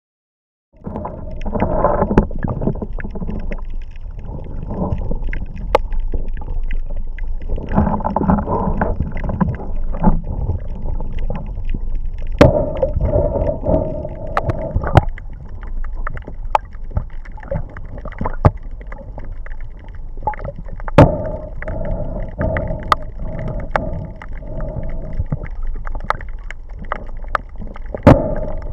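Water noise heard by a camera held just under the surface: muffled sloshing and gurgling with scattered sharp clicks, starting abruptly about a second in.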